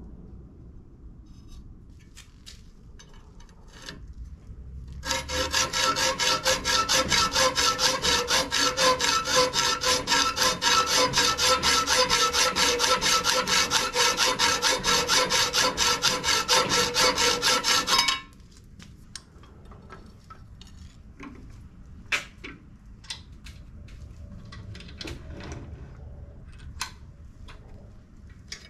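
Hacksaw cutting a piece of 3.5 mm steel angle clamped in a bench vise: rapid, steady back-and-forth rasping strokes with a metallic ring, starting about five seconds in and stopping abruptly around eighteen seconds. Light clicks and knocks from handling the metal and vise before and after.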